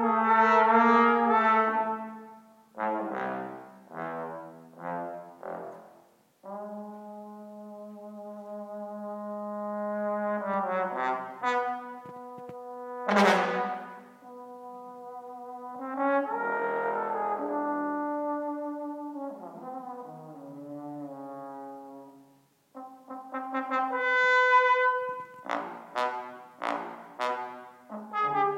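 Tenor and bass trombone playing a duet, one trombone live in the hall and the other heard over the hall's speakers from a live internet link. Long held notes alternate with runs of short detached notes, with a loud accented note about thirteen seconds in and low bass-trombone notes near the end.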